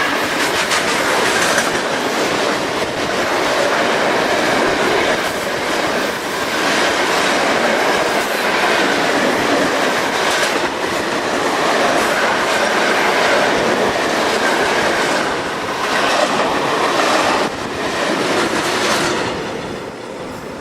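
Train passing close by, its wheels clicking steadily over the rail joints, with a faint squeal from the wheels; the sound eases off near the end as the train moves away.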